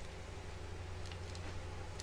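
Steady low electrical hum, with a few faint light clicks about a second in, as of small parts or a connector being handled on a workbench.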